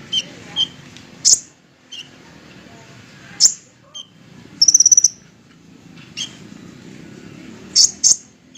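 Kolibri ninja sunbird singing in sharp, very high chirps with a fast buzzy trill about halfway through, repeated at intervals of a second or two, over a low steady hum.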